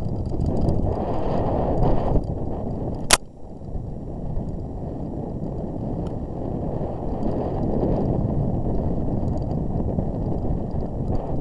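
Wind buffeting the microphone and the rumble and rattle of a camera carried at speed down a rough dirt trail. A single sharp knock comes about three seconds in.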